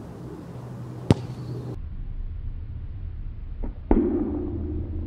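A soccer ball struck hard in a free kick: one sharp, loud thump about a second in. Near the end come two more thuds, the second louder and followed by a brief low ringing, as the ball meets the goalkeeper.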